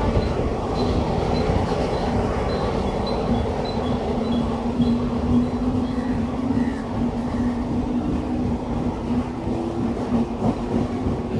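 Mumbai suburban electric local train gathering speed along a platform, heard from its open doorway: steady running noise with a low hum, and the clack of wheels over rail joints coming in near the end.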